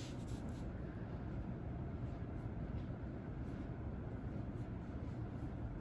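Sharpie fine-point marker drawing short curved strokes on paper, faint scratches every second or so over steady low background noise.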